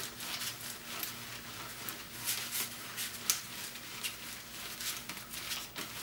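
Hand rubbing across damp thermal paper laid over cardboard, a run of soft, irregular swishes and scrapes as the water is spread evenly.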